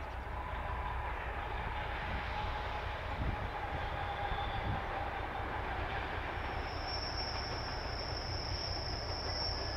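ČD class 749 diesel locomotive and its passenger coaches running past, a steady engine rumble and rolling noise. A high, thin wheel squeal sets in about two-thirds of the way through as the train leans into the curve.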